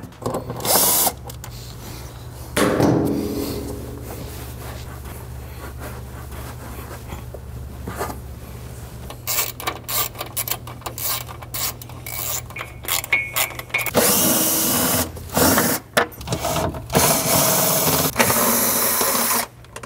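Cordless power driver running in short bursts as it backs the screws out of a UTV's plastic clutch cover, with clicks and rattles of the screws and cover being handled. The longest, loudest runs come in the last third.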